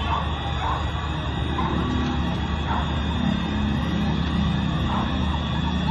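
Sirens wailing, short rising and falling glides, over a steady din of street noise.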